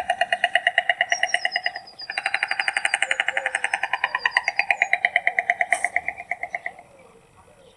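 White stork clattering its bill: a rapid, even wooden rattle of about ten strokes a second, in two bouts, a short one and then, after a brief break about two seconds in, a longer one that fades out near the end.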